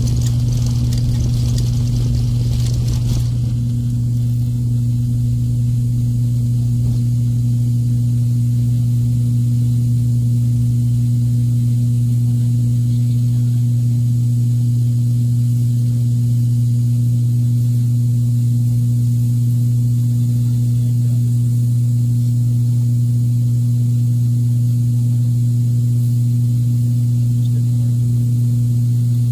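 Cabin drone of an ATR turboprop airliner's engine and propeller at takeoff power, a loud, steady low hum heard from a seat beside the propeller. A rumbling hiss from the takeoff roll stops about three seconds in, as the plane leaves the runway and climbs.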